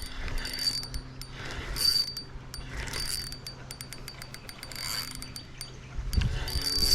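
Fishing reel being cranked to retrieve the lure after a long cast, whirring and clicking in several spells of winding.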